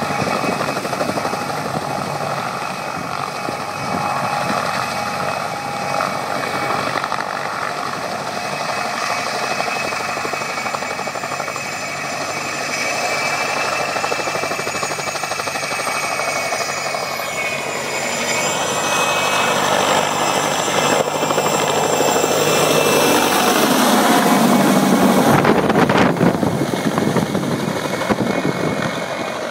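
Helicopter engine and rotor running, with a steady high whine over the rotor noise. It grows louder through the last third, with some sliding pitch changes, and eases off near the end.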